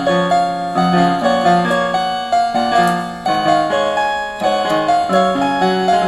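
Global GL444 electronic keyboard played with both hands in a piano sound: a steady melody line over lower left-hand notes.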